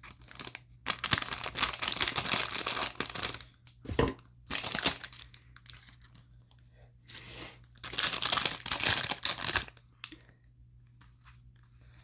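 Plastic packaging crinkling and tearing as it is pulled open from the top, in several bursts with short pauses between.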